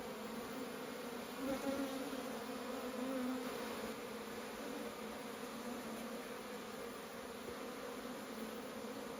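Honeybees buzzing at the entrance of their nest in a wooden granary, many bees flying in and out as they return with pollen; a steady wavering hum that grows louder for a couple of seconds as bees pass close.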